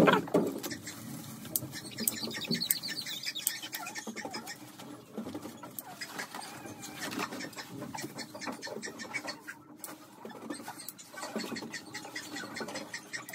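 German Shorthaired Pointer puppy giving faint high squeaks and whimpers while its nails are clipped, over many small clicks and rustles of handling.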